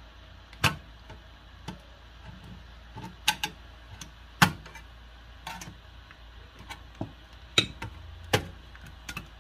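Sharp metallic clicks and taps, a dozen or so at irregular intervals, as a screwdriver pries at the sheet-steel top lid of a Kenwood car cassette stereo to work it free.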